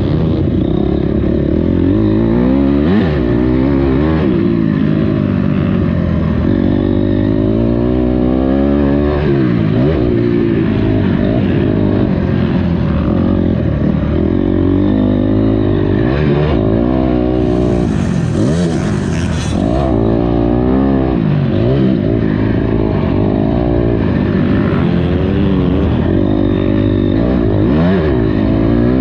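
Honda CRF250R motocross bike's single-cylinder four-stroke engine revving up and falling back again and again as the rider accelerates, shifts and rolls off. A brief hiss rises over the engine about two-thirds of the way through.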